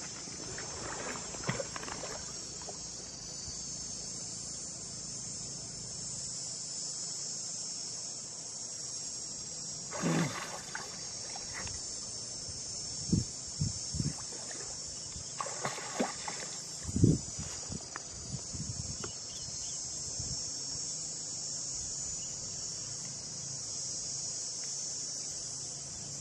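Steady high-pitched chorus of insects droning throughout, with a few brief thumps and a short splash-like rush about halfway through.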